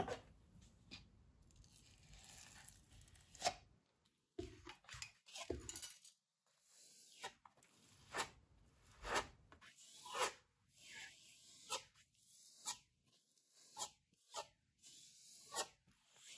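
A plastic spatula spreading thick ready-mixed filler (spackle) across a canvas: short scraping strokes, about one a second, through the second half.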